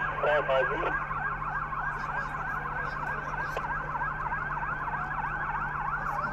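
A siren sounding a fast yelp, its pitch sweeping rapidly up and down about five times a second without a break. A short voice is heard briefly about half a second in.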